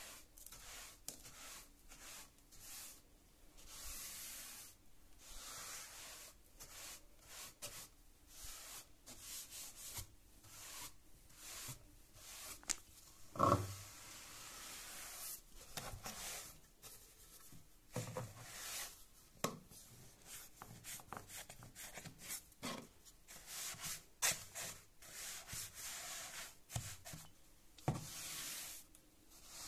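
Flat paint brush sweeping dust and grit across stair treads and along the skirting board in quick, repeated, scratchy strokes. One louder knock about halfway through.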